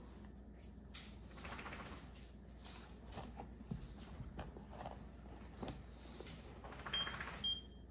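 Faint rustling and handling noise as a handheld microchip scanner is moved over a puppy's fur, then two short high beeps near the end as the scanner reads the implanted chip.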